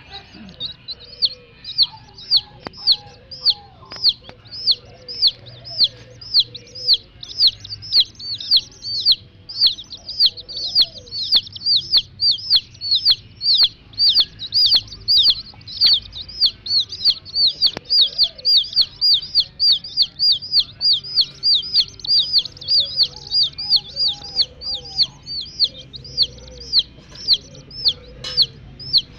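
Chicks peeping nonstop, a steady stream of high, arched cheeps about two to three a second, with a hen's low clucks breaking in now and then.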